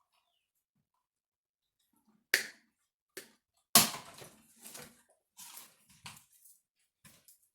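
Wires and plastic loom of a car wiring harness being handled and pulled apart, in a string of crackling rustles and clicks starting about two seconds in; the loudest comes about a second later.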